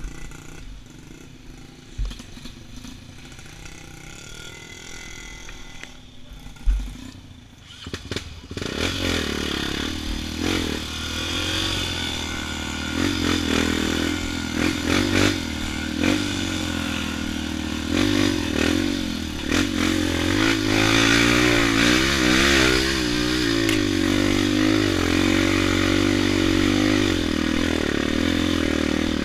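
Off-road motorcycle engine on a dirt trail, low and quiet at first with a couple of sharp knocks, then loud from about eight seconds in, its pitch rising and falling as the throttle is worked.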